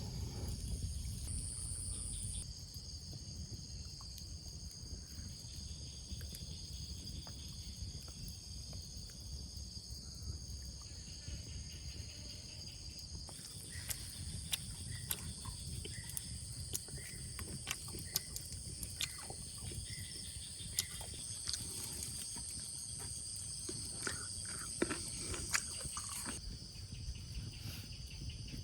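A chorus of insects chirring steadily at several high pitches over a low rumbling background. From about halfway through, scattered sharp clicks and ticks come and go.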